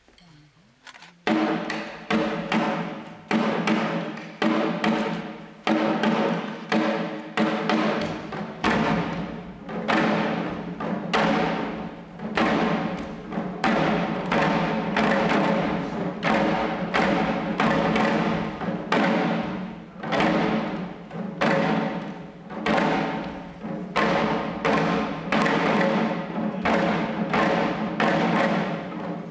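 Shishi-odori deer dancers beating the taiko drums slung at their waists, a steady rhythm of strikes that begins about a second in after a brief hush.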